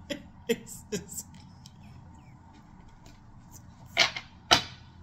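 A woman's voice briefly at the start, then quiet, then two short, sharp, loud sounds about half a second apart near the end.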